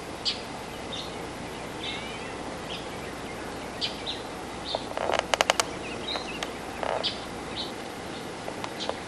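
Short high chirps repeating about every half second over steady hiss, with a quick run of five or six loud sharp clicks about five seconds in.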